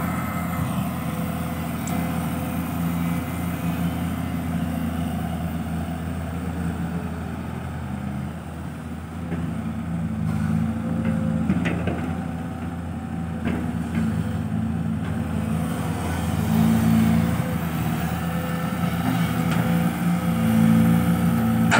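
Diesel engine of a Kobelco SK200 excavator working as it digs sand and loads it into a dump truck, the engine note rising and falling with the load and loudest near the end.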